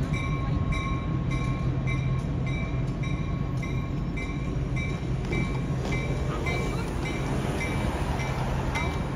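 Railroad grade-crossing bell ringing about twice a second while a freight train rolls over the crossing, with the train's steady low rumble underneath.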